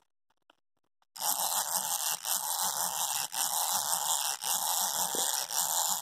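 Clockwork mechanism of a vintage white-knob mummy wind-up toy whirring as it walks. The buzz starts about a second in, runs steadily and dips briefly about once a second.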